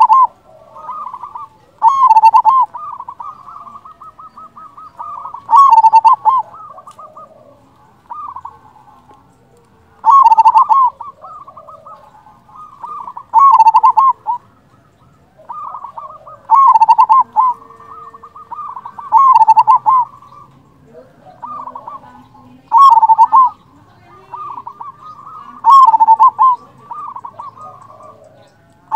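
Zebra dove (perkutut) cooing: a loud, stuttering coo phrase repeated about every three to four seconds, eight times, with softer trilling notes between the phrases.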